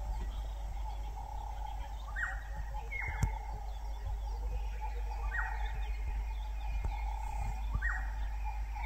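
Wild birds calling in the bush. A short call that drops in pitch repeats every second or two over a steady background chorus, with a low steady hum underneath.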